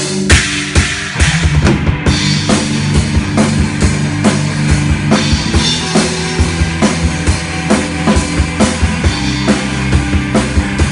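Rock band playing through the PA during a sound check: drum kit keeping a steady beat, opening on a cymbal crash, under sustained bass and guitar.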